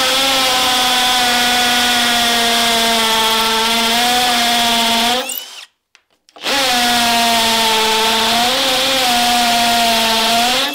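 Bosch GSB 12V-30 12-volt cordless hammer drill running at high speed in hammer mode, boring a 6 mm masonry bit into a concrete block: a steady motor whine with a harsh noise over it. It runs in two stretches, winding down and stopping a little past halfway, then starting again.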